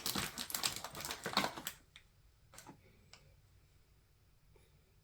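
Product packaging being handled: rapid crinkling and clicking for about the first two seconds, then a few isolated light clicks.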